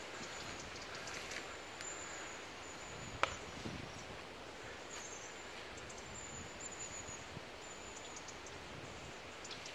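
Outdoor ambience: a steady low hiss of background noise with faint rustling and a few faint high chirps, broken by one sharp click about three seconds in.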